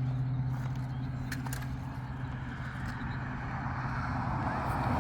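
A vehicle engine hums steadily, then fades away about three seconds in. A broad rushing noise swells near the end.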